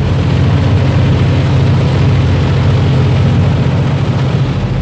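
Fishing boat under way at speed: a steady engine drone with the rush of water from its wake.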